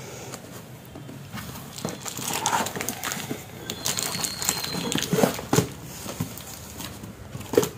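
Hands opening a cardboard shipping box: the flaps scraping and knocking, and the packaging rustling and crinkling in irregular handling noises, with a sharp knock near the end.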